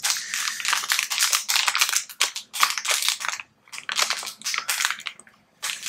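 Metallized anti-static bag crinkling and crackling as it is handled, in a run of bursts with brief pauses.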